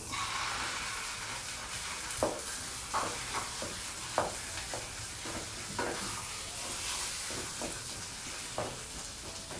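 Fish eggs (roe) frying in hot oil in a kadai with onions and spices, a steady sizzle broken by irregular scraping clicks of the spatula as they are stirred and broken up to scramble.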